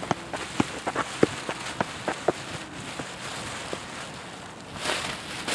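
Plastic garbage bag worn as a costume, crinkling and rustling as the wearer moves. It gives irregular sharp crackles that thin out after about two and a half seconds, and a louder rush of noise comes near the end.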